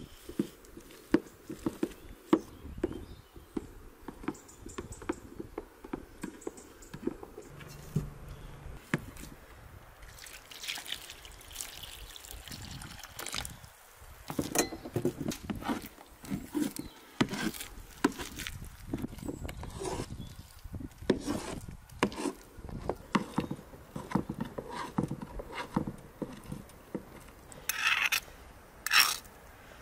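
Boiled potatoes being mashed with a small glass jar in an aluminium bowl: irregular soft squelching presses and light clicks. Near the end, a metal spoon scrapes mashed potato off the glass jar in a few sharper strokes.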